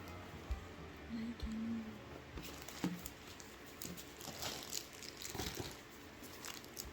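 Plastic packaging crinkling and rustling as it is handled, with scattered small clicks and taps.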